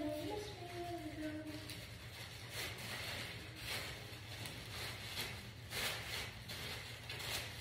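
A sheet of brown paper crackling and rustling as it is handled and folded, in a series of separate crinkles. A brief hummed voice is heard about a second in.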